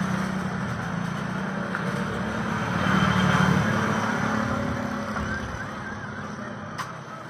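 A small motor-driven pump runs with a steady hum and a hiss, slowly growing fainter, while drawing oil out of a freezer evaporator line. A single click comes near the end.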